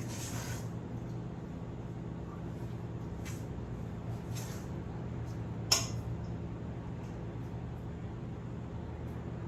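Steady low hum with a few short brushing sounds and one sharp clink, like a utensil knocked against a dish, a little under six seconds in.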